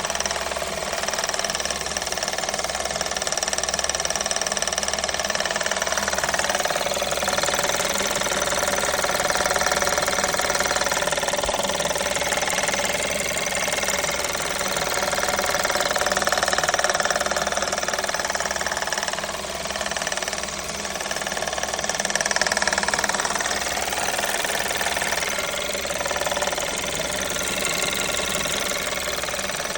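Volkswagen Jetta 6's 1.4 TSI (CAXA) turbocharged petrol engine running steadily, with an extraneous knock that has newly appeared.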